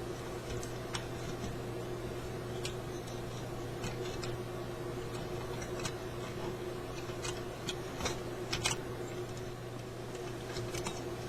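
Scattered small clicks and taps of car-radio parts and tools being handled on a workbench, loudest in a quick cluster about eight seconds in, over a steady low hum.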